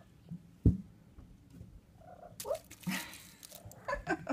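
Six-week-old kittens mewing in short, high calls, mostly near the end, with a single thump just under a second in and a brief burst of rustling in the middle.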